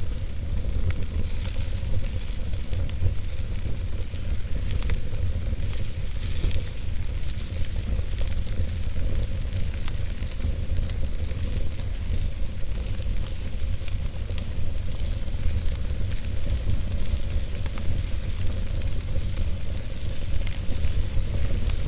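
Wood fire burning in a fireplace: a steady hiss over a low rumble, broken by frequent small crackles and pops.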